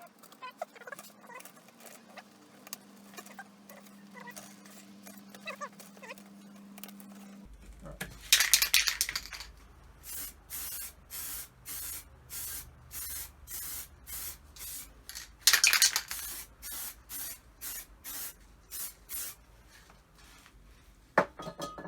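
Aerosol spray-paint can spraying the helmet's split pins. It gives two longer hisses and many short puffs about twice a second, starting about eight seconds in, after some faint handling noise.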